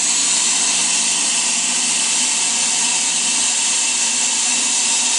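Fog machine running, a steady hiss of fog being forced through a homemade vortex fog chiller and escaping its unsealed seams, with a faint buzz underneath.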